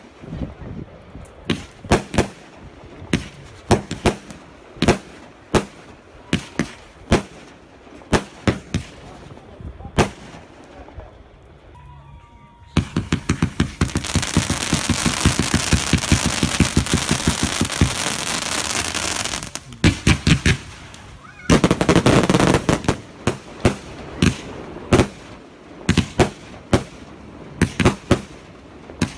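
Professional aerial fireworks firing: sharp bangs of shells launching and bursting at uneven spacing, roughly one every half second to second. About halfway through comes a dense, rapid crackling barrage lasting about six seconds, a shorter one follows soon after, then single bangs resume.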